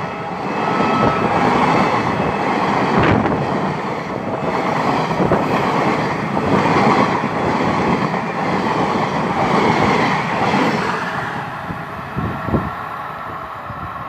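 Passenger coaches of an express train passing close at speed: a steady rumble and clatter of wheels on the rails, with a few sharp knocks, growing somewhat quieter near the end.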